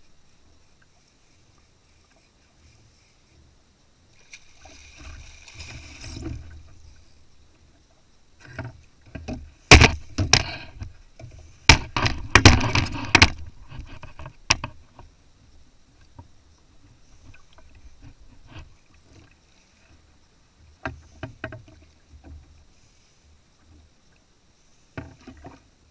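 Knocks and clatter from rod, reel and gear on a plastic fishing kayak's hull while a fish is reeled in, with a loud burst of sharp knocks about ten seconds in and a few quieter ones later.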